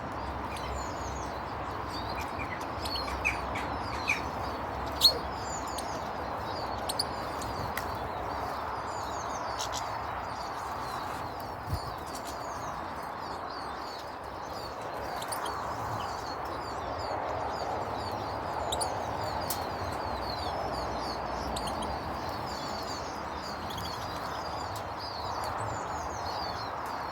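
Many small birds chirping and twittering at once, short high calls overlapping throughout, over a steady background noise, with a few sharp clicks.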